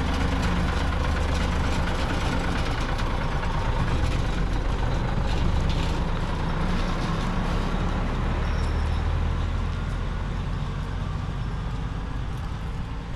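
Heavy diesel engine running steadily with a low, even hum. It eases off slightly near the end.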